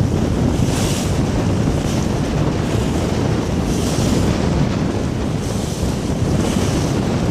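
Strong wind buffeting the microphone over water rushing and splashing along the hull of an If-boat sailing in a strong breeze, with short hissing surges of spray every second or two.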